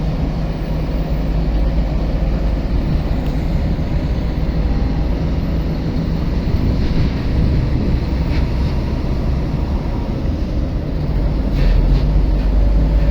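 Steady low rumble of a ship's engines during an unberthing manoeuvre, growing a little louder near the end.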